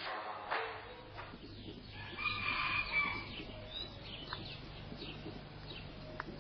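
A rooster crowing once, about two seconds in, a drawn-out call lasting around a second.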